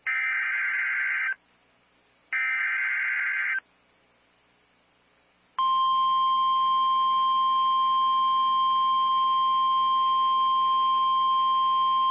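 The last two of the three EAS SAME header data bursts, each a harsh two-tone digital buzz about a second long, with a second apart between them. After about two seconds of quiet, a steady single alert tone near 1,050 Hz starts and holds: the NOAA Weather Radio warning alarm that introduces a new severe thunderstorm warning.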